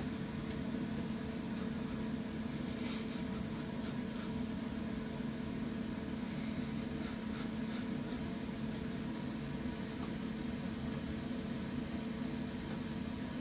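Faint scraping and tapping of a kitten's claws on a wooden cabinet door, a few light scratches about three seconds in and again around seven to eight seconds, over a steady hum.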